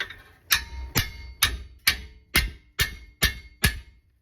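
A 3-pound sledgehammer striking a 17 mm wrench to turn a brake bolt: eight sharp metallic blows, about two a second, each with a short ring.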